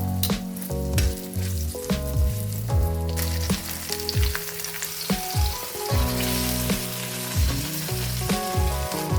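Food frying in a hot pan, a steady sizzle that grows much louder about three seconds in, over background music with a steady bass beat.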